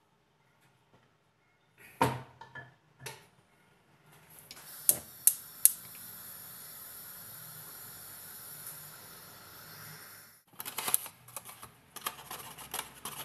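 Kitchen handling sounds around a cooking pot. A few sharp knocks and clicks come first, then a steady hiss lasting about six seconds with three sharp clicks near its start. It ends abruptly and gives way to a quick run of utensil and pot clatter near the end.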